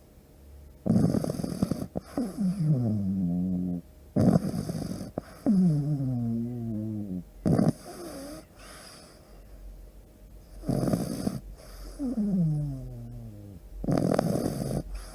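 Pug snoring in deep sleep: each breath is a short rasping snort followed by a long tone that falls in pitch, repeating about every three seconds, five times.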